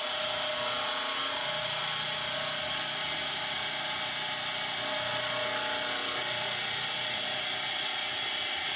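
CNC milling machine's end mill cutting the side contour of a 2017 aluminium billet gearbox casing. It makes a steady cutting noise with a high hiss over it and a constant spindle tone beneath.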